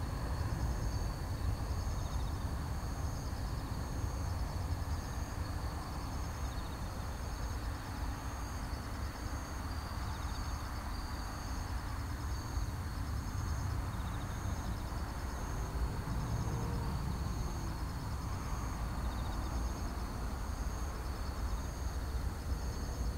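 Distant Boeing 747-400 freighter's four jet engines giving a steady low rumble on final approach, with faint high chirping repeating about once a second.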